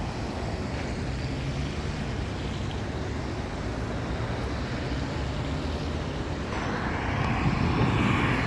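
Steady low rumble of motor traffic, growing louder and fuller in the last two seconds as a vehicle draws near.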